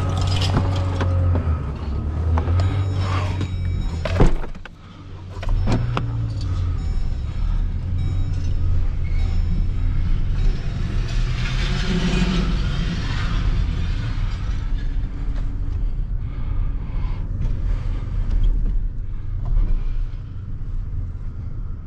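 Vehicle running on the road, a steady low engine and road rumble, with two sharp knocks about four and six seconds in.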